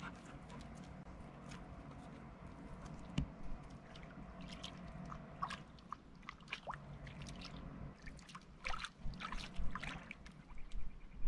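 Lake water quietly lapping and sloshing among shoreline rocks, with scattered light clicks and taps that come more often in the second half.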